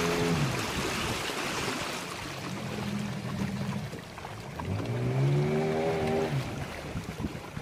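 Longboat outboard motor running, its pitch swelling up and falling back about five seconds in as the throttle is worked, over the rush of river water along the hull.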